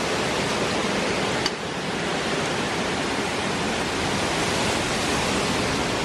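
Hurricane wind and rain, a loud, steady rush, with a brief dip about one and a half seconds in.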